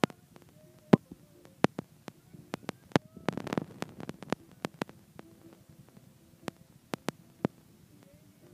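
Dropped-out recording audio: the voice is almost gone, leaving only faint traces under scattered sharp clicks, with a burst of crackle about three to four seconds in.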